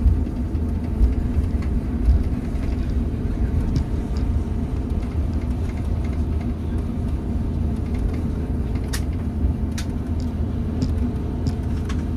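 Airbus A350-941 heard from inside the cabin during its landing rollout, a steady low rumble of the wheels on the runway and the Rolls-Royce Trent XWB engines. A few faint clicks come about nine seconds in.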